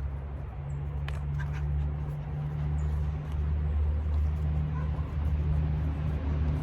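Steady low rumble, with a faint click about a second in.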